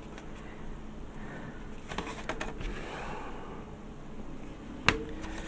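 Faint handling and rubbing noises from work on a plastic model kit part, with one sharp click near the end.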